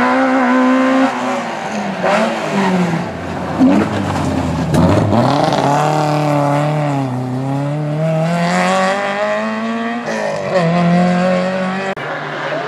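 Peugeot 205 rally car's four-cylinder engine revving hard through a corner, its pitch climbing and then dropping several times with gear changes and lifts off the throttle.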